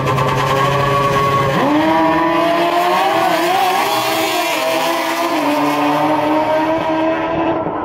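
Two drag-racing motorcycles held at steady revs on the start line, then launching about a second and a half in: the engine note jumps up in pitch and climbs with small steps as the bikes run down the strip.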